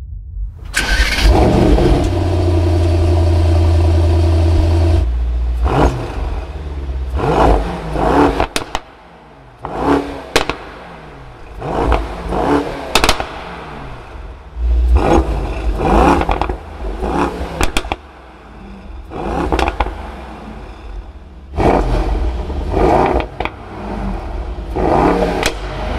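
A Mercedes-AMG GT 63 S's 4.0-litre twin-turbo V8 exhaust starts up about a second in and holds a high idle for a few seconds. It is then blipped again and again, each rev rising and dropping back, with sharp pops as the revs fall.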